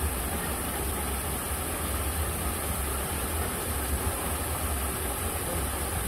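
River water rushing steadily, an even hiss with a constant low rumble underneath.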